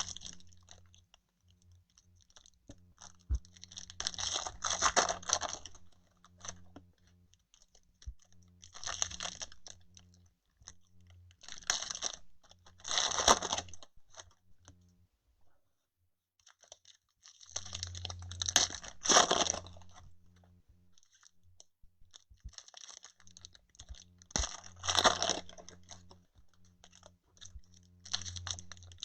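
Crinkling and tearing of plastic and foil packaging in bursts every few seconds: a sealed 2020 Donruss Optic baseball hobby box and its card packs being torn open by hand.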